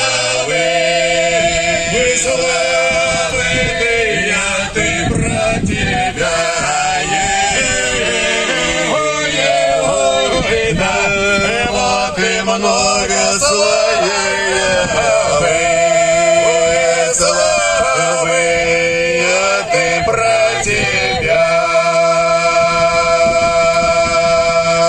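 A choir of male voices singing a choral piece, closing on a long held chord near the end.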